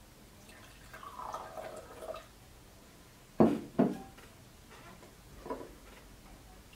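Warm water poured from a glass jug into a drinking glass, followed by two sharp knocks as the jug is set down on the desk. A lighter tap near the end.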